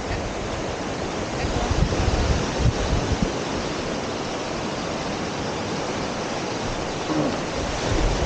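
Steady rush of surf breaking on the beach mixed with wind buffeting the microphone, gusting harder a couple of seconds in.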